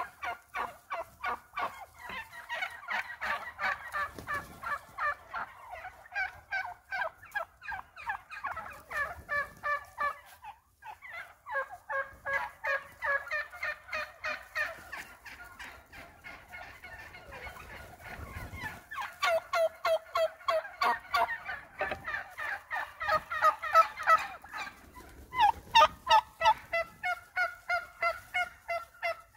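Flock of wild turkeys calling together: a continuous chorus of rapid short notes from many birds, with a brief lull about ten seconds in.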